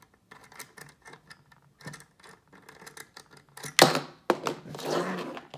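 Small metallic clicks and rattles from a helping-hands stand's detached alligator-clip arm being handled, then a sharp clack about four seconds in as it is set down on the desk, followed by about a second of scraping.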